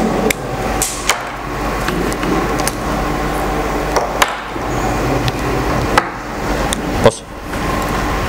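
Handling noise on a handheld microphone: several sharp knocks and clicks, the loudest about seven seconds in, as the microphone is handled alongside a marker, over a steady hum from the sound system.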